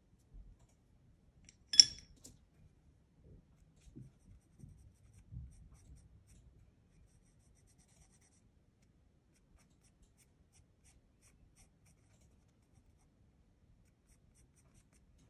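Faint rubbing and tapping of pastel on sketchbook paper, with one sharp clink about two seconds in as a pastel stick is set down on a china plate; the drawing sounds fade to a few faint ticks after about seven seconds.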